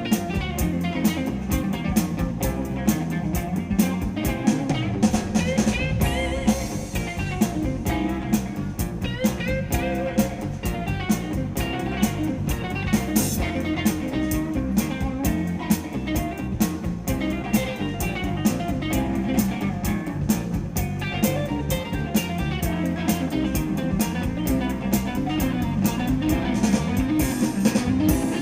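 Rock band playing: an electric guitar line with bent notes over a drum kit keeping a steady beat.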